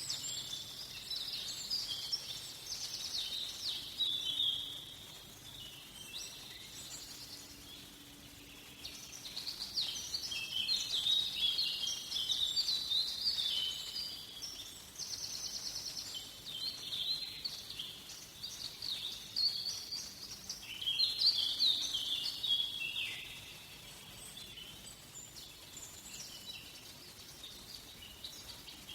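Several songbirds singing in a forest, with overlapping high chirping phrases that come in bouts and grow fainter near the end.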